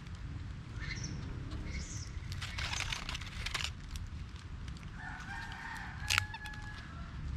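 A rooster crowing in the distance, one long held call of about two seconds near the end. Dry leaves crackle briefly in the middle as a baby macaque handles the leaf litter around her.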